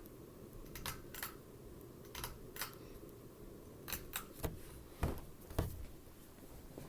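Hunter Augusta ceiling fan running with a low steady hum, with about nine sharp, unevenly spaced clicks over it. The two loudest clicks come about five seconds in and carry a dull low thump.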